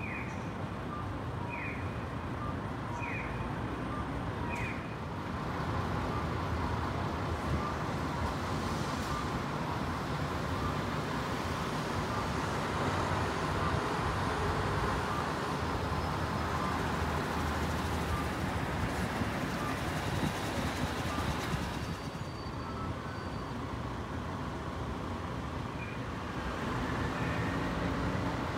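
Steady road traffic noise from cars and buses passing the station bus terminal, louder through the middle and easing off near the end. A few short high descending chirps sound in the first few seconds.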